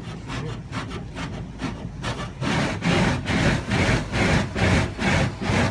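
Car wash machinery making a rhythmic swishing, scraping sound of about two to three strokes a second, heard from inside the car; it grows louder about two and a half seconds in.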